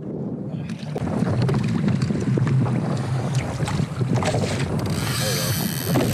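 Wind buffeting the microphone on a kayak at sea, a steady low rumble that grows louder about a second in, with water slapping the hull in short knocks.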